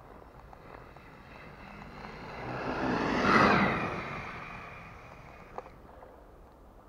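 WLtoys A929 radio-controlled car driving past on snow: the whine of its electric motor and gears swells to a peak about halfway through, dropping in pitch as it passes, then fades away.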